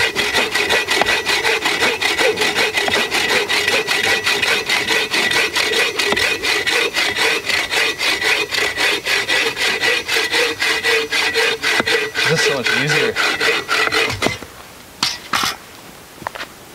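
Bow saw with a Sidney Rancher blade cutting through a dry hophornbeam (ironwood) log in quick, even back-and-forth strokes. The sawing stops about 14 seconds in as the cut finishes, followed by a few light knocks of the wood being handled.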